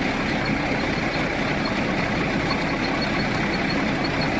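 Rice mill machinery running steadily, a continuous mechanical noise with a faint high tick repeating about four to five times a second.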